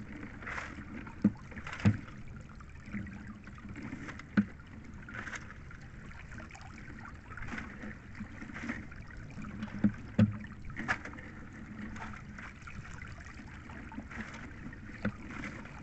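Wet cottonii seaweed being hauled out of the sea by hand into a small boat: water splashing and dripping off the heaped seaweed, with a few sharp knocks at irregular moments.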